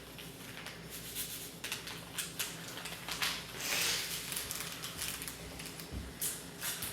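Handling noises at a table: light rustling and scattered small clicks, with a brief louder hissing rustle about four seconds in.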